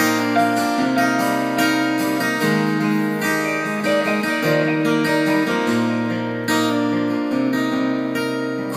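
Live band music with no vocals: strummed acoustic guitar chords over bass and band, the chord changing every second or two.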